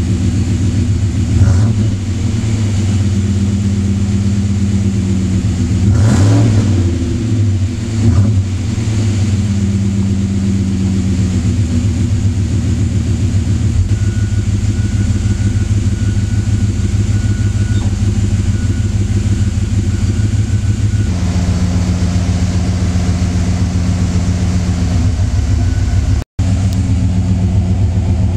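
Cadillac 6.0 V8 running through MagnaFlow mufflers: idling, blipped up in short revs about a second and a half in, again around six seconds and once more around eight seconds, then settling back to a steady idle for the rest. The revs are kept low because the engine is freshly rebuilt.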